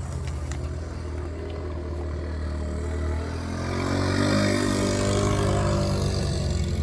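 A motor vehicle's engine running. It grows louder and rises in pitch a few seconds in.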